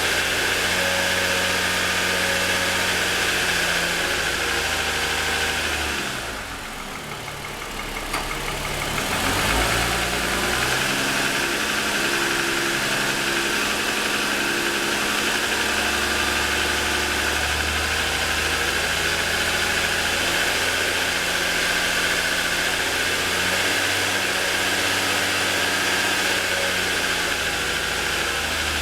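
2007 Lexus ES350's 3.5-litre V6 idling with the hood up after a cold start, with a very pronounced piston slap that the owner takes for a design or production defect. The sound drops in level for a few seconds about six seconds in, with a single click, then comes back steady.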